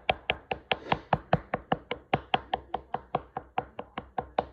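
A fork repeatedly stabbed into raw chicken breast, its tines clicking against the cutting board about five times a second.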